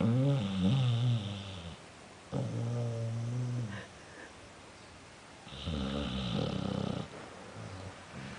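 A sleeping pet snoring: three long, rasping snores about a second and a half each, with short pauses between them.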